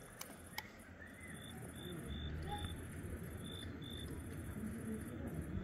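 Insects chirping: a high, pulsing trill that stops and starts, with a shorter chirp repeated about twice a second below it. Two sharp clicks come in the first second, and a low rumble grows about two seconds in.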